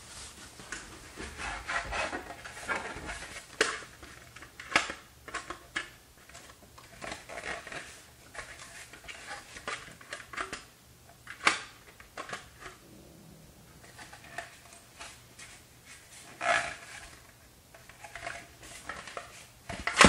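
A polycarbonate full-brim hard hat being handled and turned over: its plastic shell rubbing against hands, with irregular sharp taps, clicks and knocks. The loudest knock comes at the very end.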